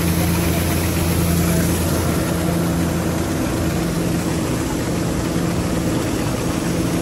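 Rice combine harvester's engine running steadily with a low hum; the deepest part of the hum drops away about halfway through.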